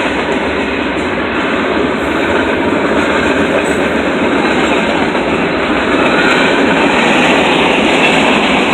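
Freight cars of a Norfolk Southern freight train rolling past, a steady rumble and rattle of wheels on the rails.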